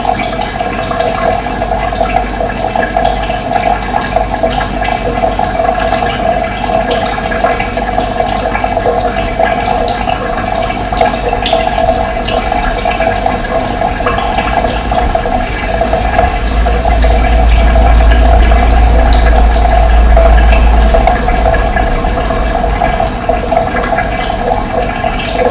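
Running water rushing steadily, with small bird chirps scattered over it. A deep rumble swells for a few seconds past the middle, then drops back.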